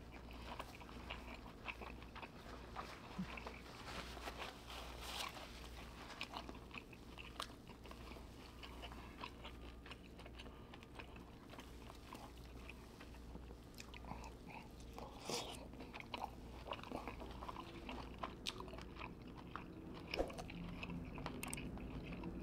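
A person eating seafood boil close to the microphone: chewing and biting, with many small irregular clicks, over a steady low hum.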